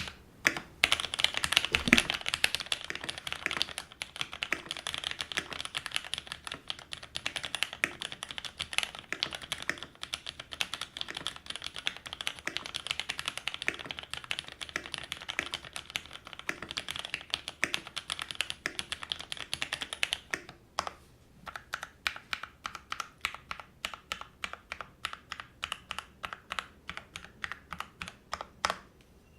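Typing on a Heok Dolch TKL custom mechanical keyboard with Greetech Black linear switches (58 g) and GMK Skidolcha keycaps: fast, continuous key clacks. About 20 seconds in, the typing gives way to separate single key presses, two or three a second, which stop shortly before the end.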